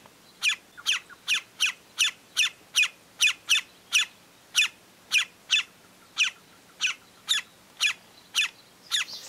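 Green-barred woodpecker calling: a long series of short, repeated notes, each falling in pitch, about three a second and slowing a little toward the end.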